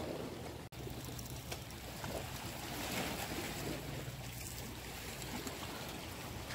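Seaside outdoor ambience: a steady low hum under a light haze of wind and water noise, with a brief dropout a little under a second in.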